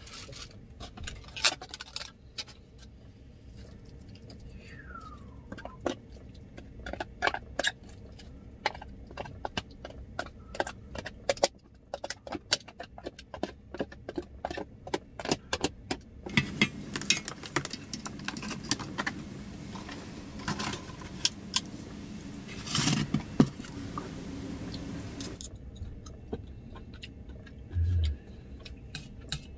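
Chopsticks clicking and scraping against a wide metal plate and a plastic food container as a cockle-and-chive topping is tipped onto rice and mixed in: many quick, sharp clinks, with a low thump near the end.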